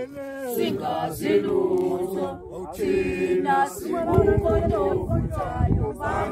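A group of people singing a chant-like song together, unaccompanied, with low rumbling on the microphone in the second half.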